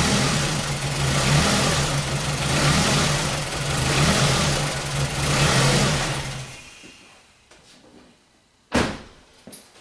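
2001 Ford Focus Zetec four-cylinder engine running rough with its camshaft sensor unplugged, misfiring and bogging, its sound surging and easing about every second and a half. It winds down and stops about two-thirds of the way through, and a single sharp click follows near the end.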